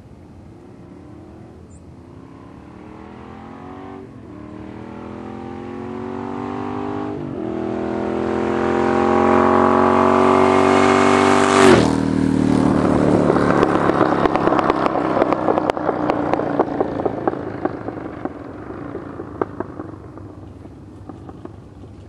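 1985 Yamaha Virago XV1000 V-twin with a Jardine aftermarket exhaust, accelerating up through two gear changes as it comes closer and louder. About halfway through it passes close by with a sudden drop in pitch, then fades away, the exhaust crackling and popping as it goes.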